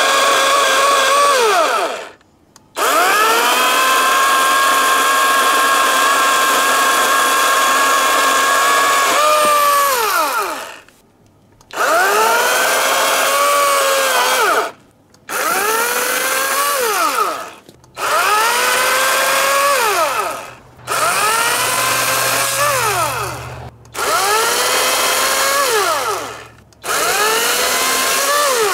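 Greenworks 80 V cordless electric chainsaw cutting pine branches in about eight separate bursts of the trigger. Each burst whines up to speed, runs steady for a couple of seconds, the longest for about seven, then winds down to a full stop. The saw goes quiet between cuts instead of idling.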